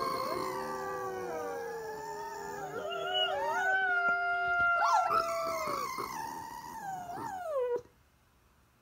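Boston Terrier howling: long, wavering howls that bend up and down in pitch, ending in a falling note about eight seconds in.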